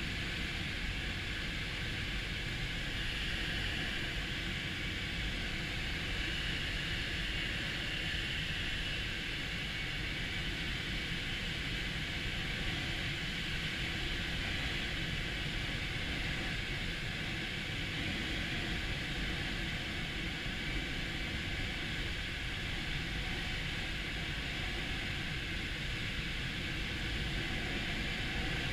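Steady rushing hiss of air over a glider's canopy and cockpit while it is towed aloft behind a tug plane, with a steady low rumble underneath.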